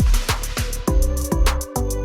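Electronic background music with a driving beat: deep bass kicks, fast hi-hat ticks and sustained synth tones.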